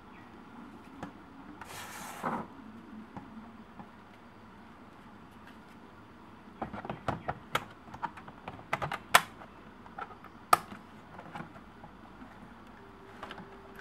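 Plastic laptop casing being handled: a short scraping rustle about two seconds in, then a run of sharp clicks and knocks in the second half, two of them much louder than the rest.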